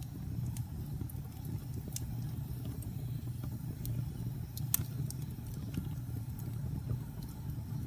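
Wood fire burning in a fireplace: a steady low roar with scattered sharp crackles and pops, the loudest pop a little past halfway.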